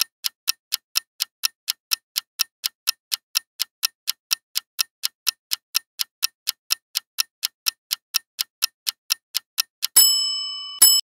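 Quiz countdown-timer sound effect: a clock ticking about four times a second for ten seconds. Then a bright ringing tone strikes twice to mark that time is up, and the second strike is cut off short.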